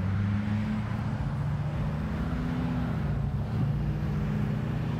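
An engine running steadily, a low hum with its pitch shifting slightly.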